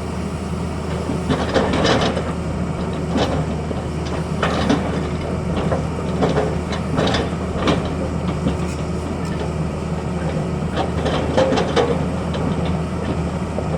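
Tata Hitachi excavator's diesel engine running steadily, with irregular metallic clanks and scrapes from the machine at work.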